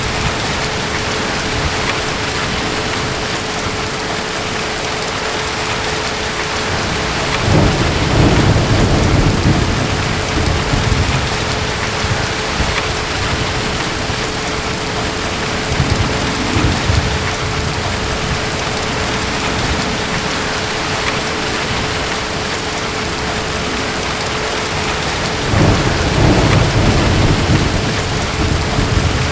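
Steady heavy rain with distant thunder rumbling low, once about a quarter of the way in, faintly around the middle, and again near the end.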